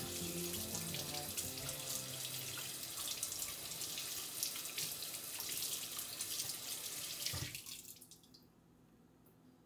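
Kitchen faucet running, water splashing over apples held in the stream and into a stainless steel sink. The flow stops with a short low knock about seven and a half seconds in.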